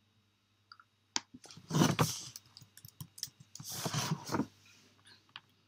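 Typing on a computer keyboard: scattered key clicks. Around two and four seconds in come two louder rushes of noise, each about half a second long.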